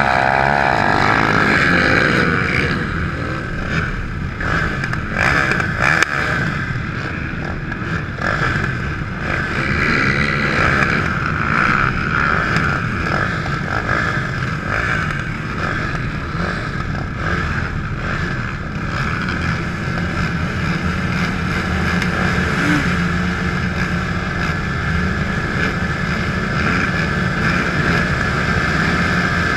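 Can-Am DS450 quad's single-cylinder four-stroke engine idling steadily, with other quads' engines idling around it; a rev falls away in the first two seconds.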